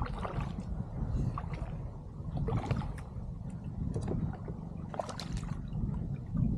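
Water splashing and gurgling beside a fishing kayak as a small snapper is brought in to the boat, with scattered clicks and knocks over a steady low rumble.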